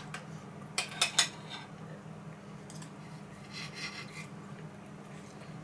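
Knife and fork on a plate as a piece of duck breast is cut: a few clinks in the first second and a half, then the knife scraping across the plate a little past the middle.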